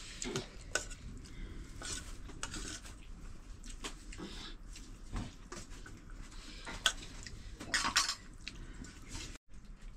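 Metal utensils clinking and scraping against pots and dishes in scattered sharp knocks, the loudest about seven and eight seconds in.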